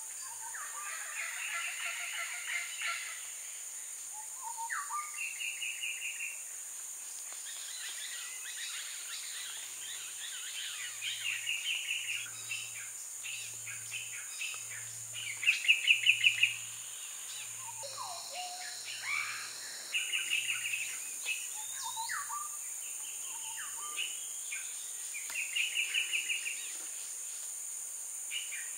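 Tropical birds calling: short bursts of rapid chattering notes repeat every few seconds, over a steady high insect drone. In the middle a series of low pulses, about two a second, runs underneath, and it is loudest around the strongest calls.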